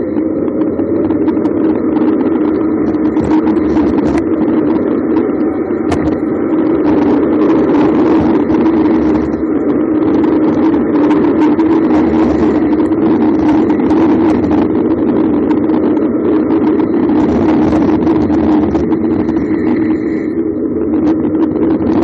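Steady, loud riding noise of moving fast downhill on a paved road: wind on the microphone and road rumble, with a hum that holds one pitch throughout.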